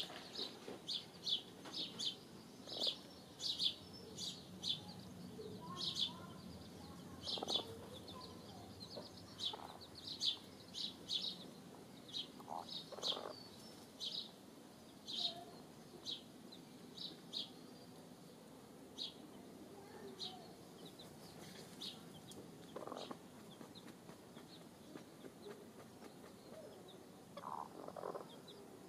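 Chicks peeping in a string of short high notes, coming fast at first and thinning out after about eighteen seconds, with a few lower, softer clucks among them.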